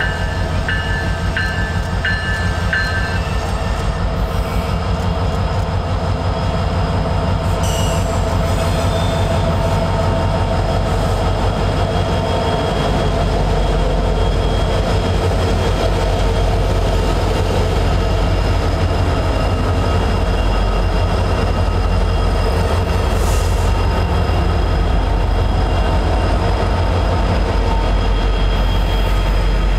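Diesel-hauled freight train running close by, a loud steady heavy rumble throughout. A bell dings about twice a second for the first few seconds, just as the locomotive horn cuts off.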